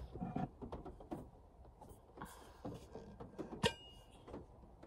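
Cooking gear being handled: scattered light clicks and knocks, with one sharp metallic clink that rings briefly about three and a half seconds in.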